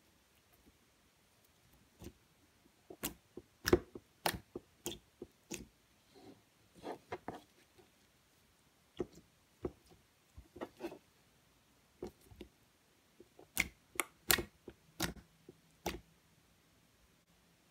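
Thick slime being stretched, folded and pressed by hand, giving irregular sticky pops and wet clicks with quiet gaps between. The loudest pops come about four seconds in and again around fourteen seconds.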